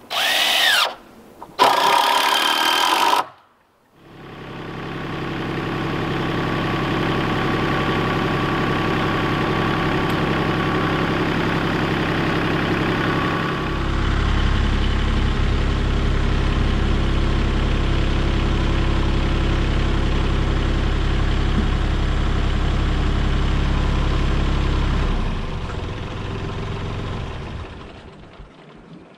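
Two short bursts from a cordless power driver, then a compact tractor engine comes in and runs steadily while its boom lifts a plank walkway. The engine sound deepens and strengthens about halfway, drops back again and fades near the end.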